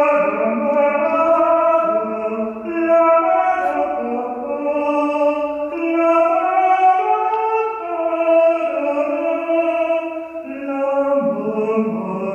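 A man singing a slow unaccompanied melody of long held notes that step up and down in pitch, each note lingering in the echo of a church interior.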